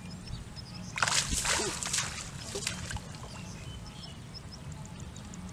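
Shallow muddy water sloshing and splashing as a hand rummages in it among grass stems, loudest from about one to two seconds in.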